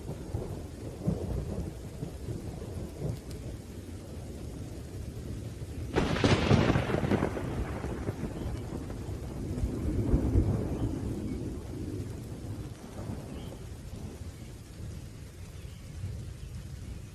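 Thunderstorm: low rolling thunder with a sharp thunderclap about six seconds in that fades into rumble, and another swell of rumbling around ten seconds, over a faint hiss of rain.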